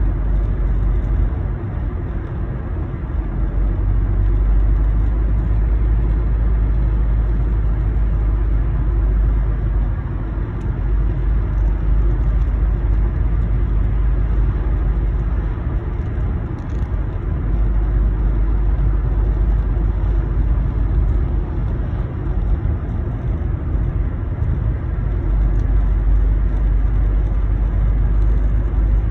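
Steady low drone of a moving car heard inside its cabin: tyre and engine noise on the road, with small swells and dips in loudness.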